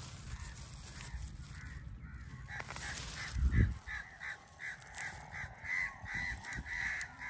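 A bird calling in a quick run of short, repeated calls, about three a second, starting about four seconds in. A low thump comes just before them, about three and a half seconds in.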